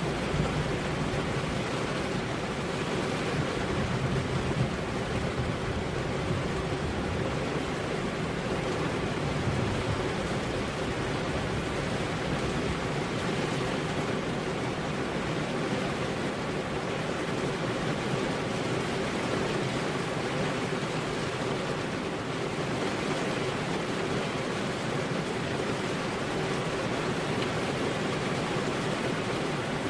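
Steady rainfall, an even dense hiss with no let-up. A low rumble sits underneath during roughly the first ten seconds.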